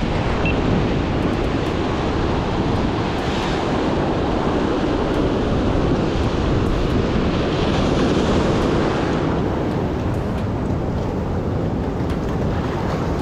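Ocean surf washing against a rocky shore, with wind rumbling on the microphone; the wash swells twice, about 3 and 8 seconds in.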